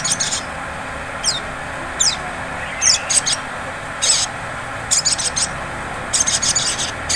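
Olive-backed sunbird giving repeated bursts of rapid, very high-pitched chattering notes, with a few quick downward-sweeping notes in the first few seconds. A steady hiss lies under the calls.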